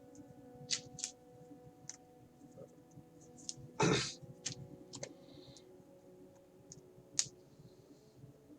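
LEGO Technic plastic parts clicking as they are handled and fitted together: scattered sharp clicks, with a louder, longer rattle about four seconds in, over a faint steady hum.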